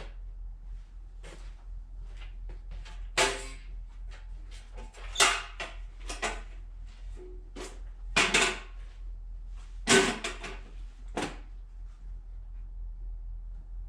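A run of sharp clunks and clatters of hard objects being handled, about seven of them spread through the middle, over a low steady hum.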